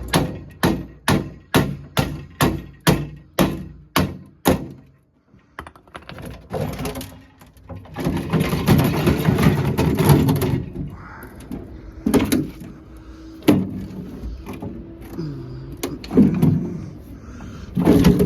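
A quick run of about a dozen sharp taps on the metal parts of a combi boiler being stripped for scrap, about three a second, to knock the parts loose. After a short pause comes a couple of seconds of clattering and scraping as parts are worked free, then a few single knocks.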